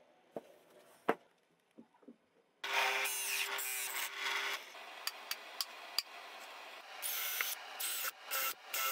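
A few light knocks of wood, then a drill press with a hole saw cutting into a wooden board, a steady motor tone under a rasping cutting noise. Near the end a cordless drill bores into a wooden disc in short stop-start bursts.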